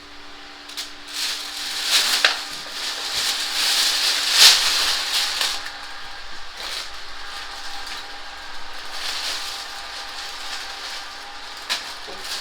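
Vacuum pump running with a steady hum while evacuating the air-conditioner refrigerant lines. Over it come rustling, scraping handling noises with sharp clicks, loudest in the first half.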